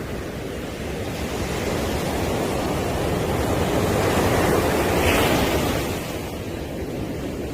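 Sea surf on a beach: a wave swells and breaks about two-thirds of the way through, then the wash dies back down.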